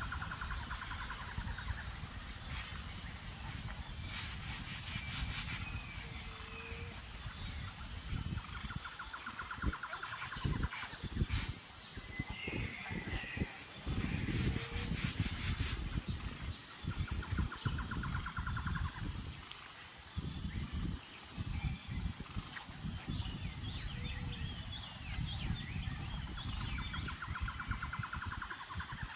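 Outdoor ambience: wind rumbling and buffeting on the microphone, with a bird's rattling trill of about two seconds repeating roughly every nine to ten seconds, a few short chirps, and a faint steady high pulsing tone.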